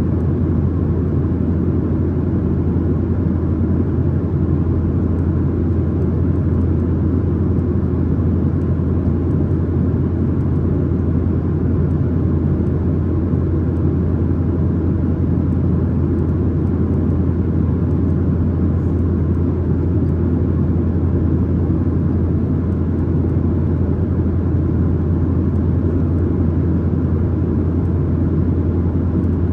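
Steady in-flight cabin noise of a Boeing 737-900ER, heard from a main-cabin seat: an even, loud low drone from the engines and the airflow over the fuselage, unchanging throughout.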